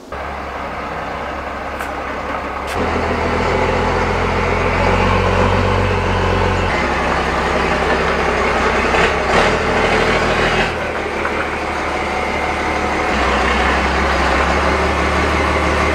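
Pickup truck engine running at low speed as the truck reverses slowly. The engine note gets louder about three seconds in and shifts up and down a few more times as the driver works the throttle.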